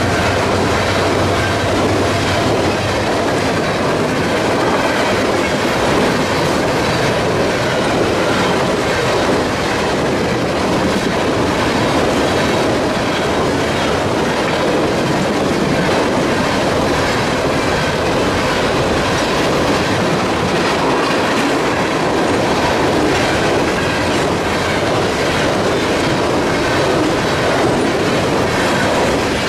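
A freight train's cars rolling past close by: a steady rumble of steel wheels on rail, with the clickety-clack of wheels passing over rail joints.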